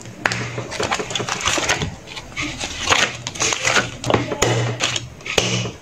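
Crinkling and crackling of a clear plastic journal cover and paper pages handled by the fingers, with many quick taps and clicks.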